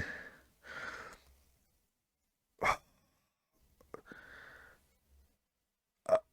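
A man breathing between remarks: two soft exhales, with two brief sharp breath or mouth sounds between and after them.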